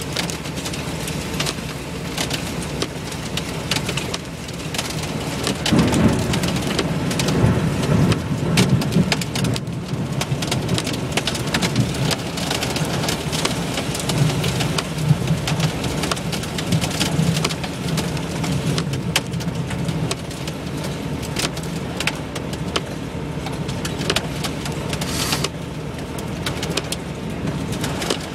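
Hail and heavy rain drumming on a vehicle's roof and windshield, heard from inside the cab: a dense, steady patter of sharp ticks, with a low rumble swelling about six to nine seconds in.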